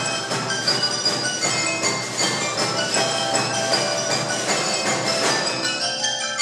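Live ensemble percussion music: a dense, continuous stream of struck notes, bell-like and mallet tones mixed with sharp wooden strikes.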